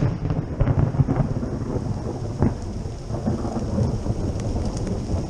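Heavy rain pouring down during a thunderstorm, with a continuous low rumble of thunder.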